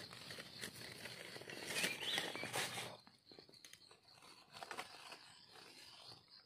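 Dry leaf litter crackling and rustling as a hand digs through it, heaviest for the first three seconds, then only scattered light crackles.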